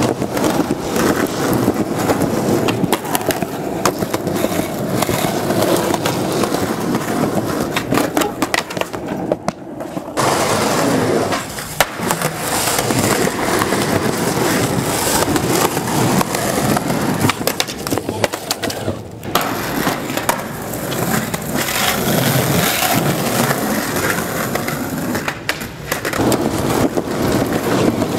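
Skateboard wheels rolling over rough concrete, a continuous gritty roll broken by sharp clacks of the board, easing off briefly about ten seconds in and again near nineteen seconds.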